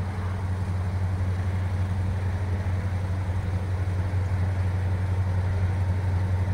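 A vehicle engine idling with a steady low hum.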